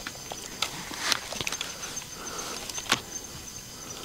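Scattered sharp clicks and taps, the loudest about a second in and just before three seconds in, over a faint steady high-pitched tone.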